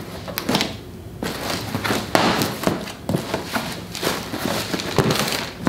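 A large cardboard shipping box being opened and unpacked: tape being cut, cardboard flaps handled and plastic-bagged parts rustling, with irregular thuds and knocks.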